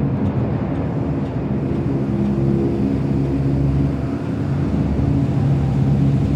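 Star Wars AT-AT walker sound effect: a continuous low mechanical rumble with sustained humming tones that shift in pitch now and then.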